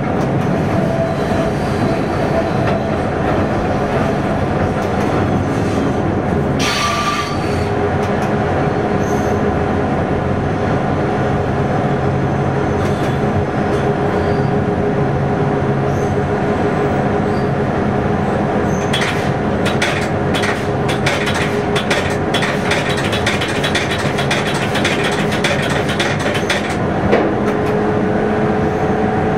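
Train running, heard from inside the driver's cab: a steady running drone with a short hiss about seven seconds in. From about twenty seconds in, a spell of rapid sharp clicks and rattles.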